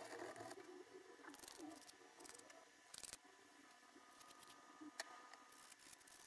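Quiet, scattered clicks and taps from a small bent sheet-metal plate being handled in the hands, with a sharper click about three seconds in and another about five seconds in.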